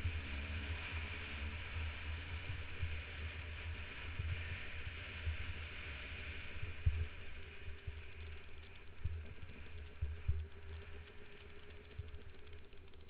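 Dirt bike engine running under load on a climb, with heavy wind buffeting on the microphone and a few sharp thumps from the bumpy ride, the loudest about 7 and 10 seconds in. The engine note settles into a steadier tone in the second half.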